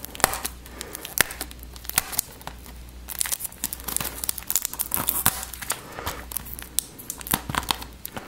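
Clear cellophane shrink-wrap on a plastic Blu-ray case crinkling and tearing as fingers pick at it, in a run of irregular sharp crackles.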